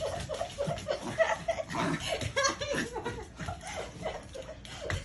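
A woman laughing and giggling in short, broken bursts as the dogs climb on her and nuzzle her face.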